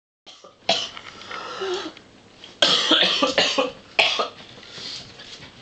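A person coughing in three short bouts.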